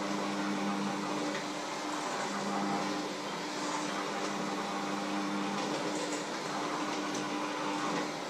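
Electric hand mixer running in a metal bowl: a steady motor whir with a hum that dips briefly a few times.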